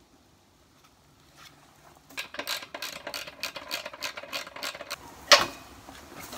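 13 mm socket spanner ratcheting as a nut is tightened on a compressor support-foot bolt: a quick run of metal clicks, about four a second, starting about two seconds in. About five seconds in comes a single loud metallic knock.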